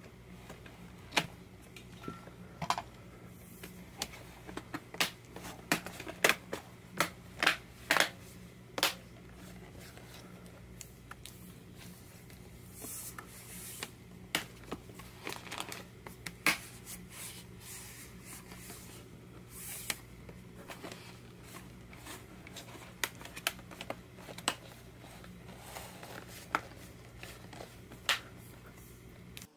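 HP Pavilion laptop's plastic top case being pressed down by hand and snapped back onto its base, a string of sharp plastic clicks and snaps. They are busiest in the first nine seconds and again near the end, over a steady low hum.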